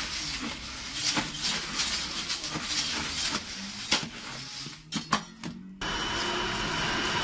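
Coffee beans rattling and scraping against a stainless steel tin as a hand stirs and scoops through them. Near the end an electric coffee grinder starts suddenly and runs with a steady whir as it grinds the beans.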